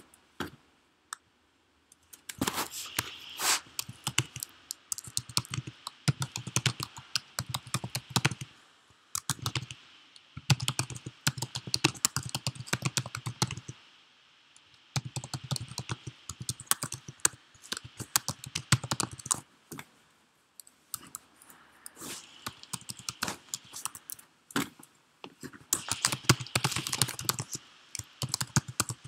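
Typing on a computer keyboard in quick runs of keystrokes, broken by a few short pauses.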